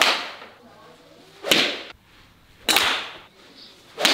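A golf club whooshing through the air in a run of quick practice swings, about one swish every second and a half.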